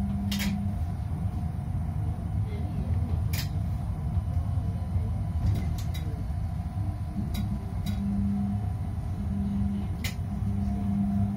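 Tram running slowly, heard from inside the driver's cab: a steady low rumble with a hum at one pitch that comes and goes, and several short sharp clicks.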